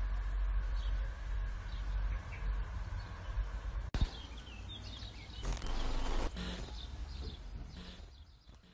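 Outdoor ambience: a steady low rumble with scattered bird chirps. There is a sharp click about four seconds in and a brief louder rush of noise a little later, and the sound fades out near the end.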